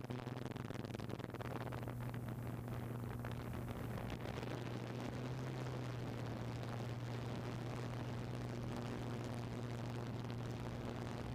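Camera drone's motors and propellers humming steadily in flight, a low even hum over a rushing hiss.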